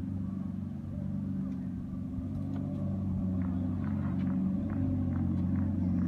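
Drag car engine idling with a steady low hum that slowly grows louder, with faint light ticks through the middle.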